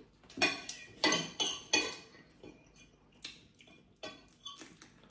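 Cutlery clinking and scraping on dinner plates while eating. There are several sharp clinks in the first two seconds, then fainter scattered ones.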